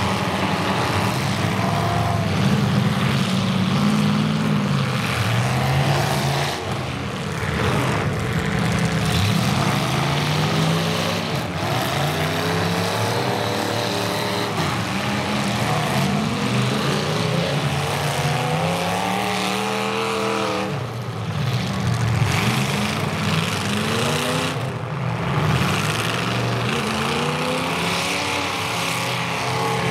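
Several demolition derby cars' engines revving hard at once, pitches rising and falling as the cars push and ram each other.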